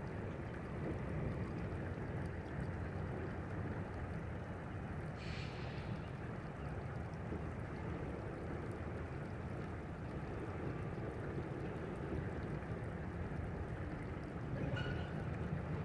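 Freight train of tank cars rolling across a steel truss bridge: a steady low rumble, with a brief hiss about five seconds in and a short higher-pitched squeal near the end.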